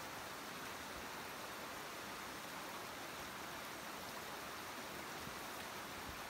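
Steady rush of running water from a creek.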